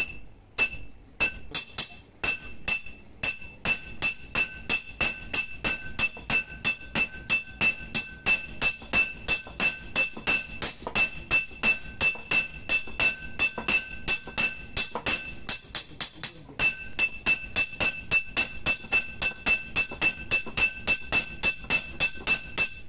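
Hand hammer and sledge striking a red-hot spring-steel blade on a steel anvil, forging it out: a steady run of blows, about three to four a second, each with a high metallic ring.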